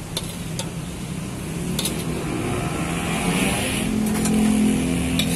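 A vehicle engine running close by, its hum getting louder about four seconds in, with a few sharp clinks of a metal ladle against a steel wok.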